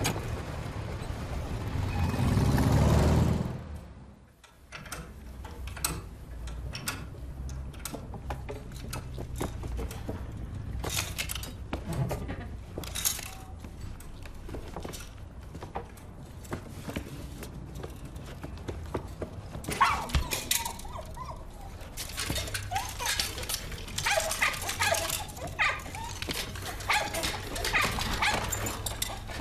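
A small mechanical robot dog's yips and whimpers among many light metallic clicks and clanks. A low rumble swells over the first few seconds and cuts off about four seconds in.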